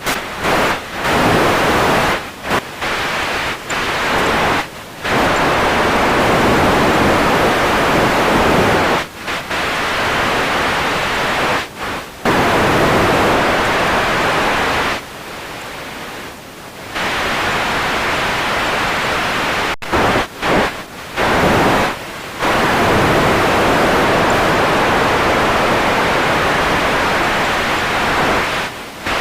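Radio static: a loud, even hiss that keeps cutting out in short, irregular dropouts, with a quieter, thinner stretch about halfway through.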